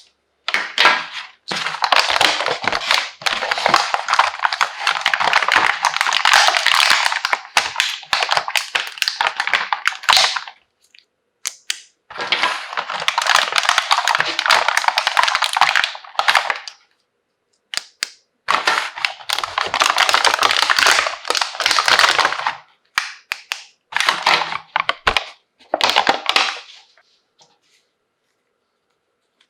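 Packaging crinkling and crackling as it is handled and opened, in three long stretches of several seconds each and a few shorter bursts near the end.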